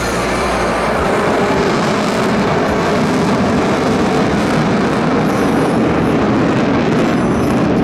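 Steady, loud jet roar from the Black Eagles' KAI T-50B jets, single turbofan engines, passing overhead in formation.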